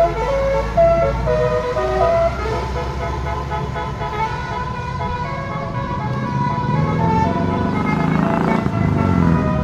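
Bus basuri melody horn playing a tune over the bus's running engine: quick stepped notes in the first two seconds, then longer held notes.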